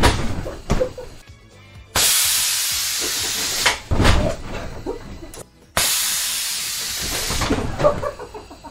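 Compressed air hissing from a pneumatic bed-tipping rig's cylinders and valves at about 110 PSI. It starts suddenly and fades over a second or so, twice, about two seconds in and near six, with heavy thumps as the bed frame lurches and a body falls onto it.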